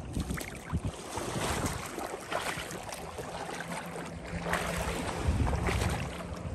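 Wind buffeting the microphone over shallow sea water lapping and splashing lightly around a wader's legs, with scattered small splashes and crackles; the wind gusts harder about five seconds in.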